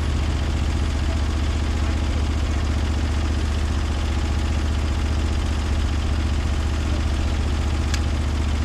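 Engine of a Norwood LumberPro HD36V2 portable sawmill running steadily at constant speed, with a short click near the end.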